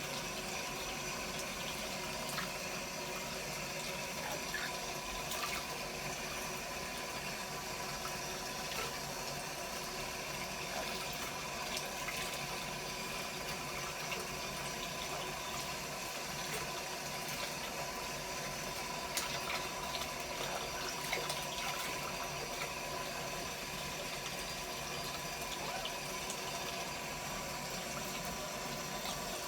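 Shower water running steadily, an even hiss of spray, with a few brief clicks.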